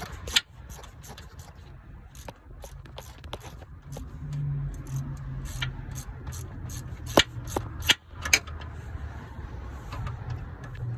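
Metal hand tools clicking, clinking and scraping against metal parts, with a few sharp metallic knocks between about seven and eight and a half seconds in, over a steady low hum.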